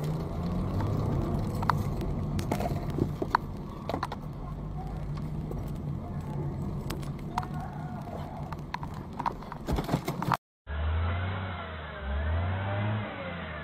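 Car driving, heard from inside the cabin: a steady low engine and road hum with scattered light clicks and knocks. About ten seconds in the sound cuts off briefly, and a duller recording follows with a low, throbbing engine and higher tones that waver up and down.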